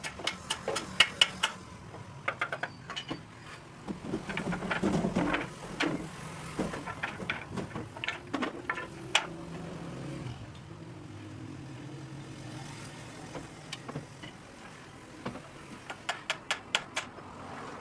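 Runs of quick, sharp taps or knocks, several strikes a second, with a denser clatter about five seconds in and a faint steady low hum through the middle.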